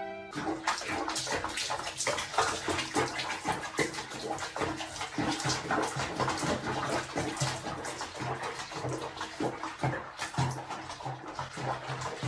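Bath water sloshing and splashing around a cat sitting in a foamy bubble bath: a dense, steady run of small splashes.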